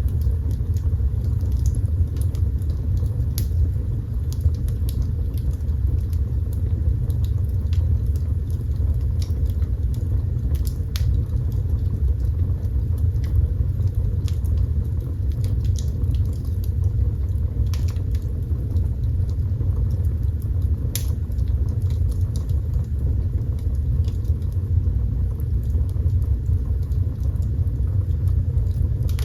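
Fire burning in a fireplace: a steady low rumble of the flames with scattered sharp crackles and pops throughout.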